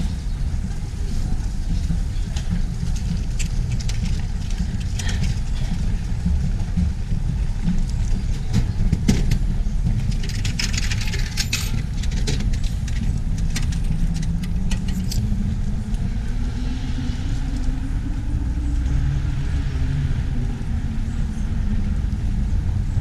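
Clicks and knocks from an Ito En drinks vending machine being used. About nine seconds in, a sharp knock like a bottle dropping is followed by the rustle of the plastic delivery flap being pushed open. All of this sits over a steady low rumble of road traffic, with a slow rise and fall in pitch like a passing vehicle in the second half.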